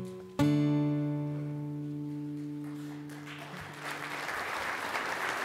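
Acoustic guitar strummed once for a final chord, which rings and fades over about three seconds as the song ends; audience applause rises underneath from about three seconds in.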